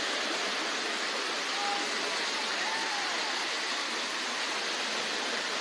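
Floodwater rushing down a street in a fast torrent: a steady, unbroken rushing of churning water.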